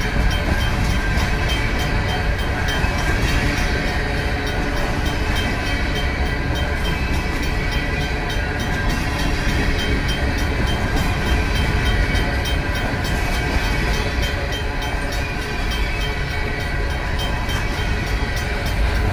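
A long Union Pacific freight train of covered hopper cars rolls steadily past, with a continuous rumble of wheels on rail. Over it, the crossing's RACO mechanical bell rings on without a break.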